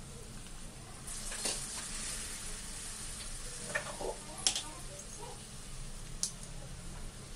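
Shredded soaked wheat dough landing in a hammered steel kadai of hot oil and spices and sizzling, the hiss thickening about a second in. A couple of sharp ticks sound near the middle and near the end.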